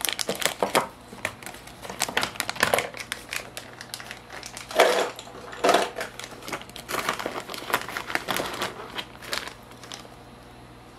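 Thin clear plastic bag crinkling and crackling in the hands as it is opened and a fishing jig is pulled out of it. The crackling dies away about a second before the end.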